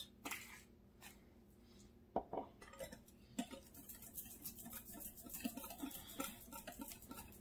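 Wire whisk beating eggs and sugar in a glass bowl: faint, quick clinks of the wires against the glass, starting about three seconds in.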